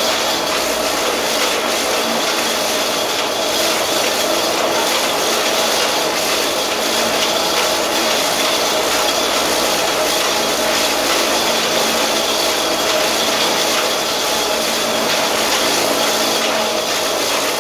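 Belt-driven sisal decorticating machine running steadily as it strips leaves into fibre and green pulp: a loud, continuous mechanical noise with a few steady hum tones in it.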